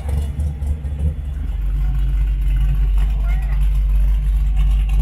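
A car engine running with a deep, steady rumble that grows louder about a second and a half in, as if the car draws closer.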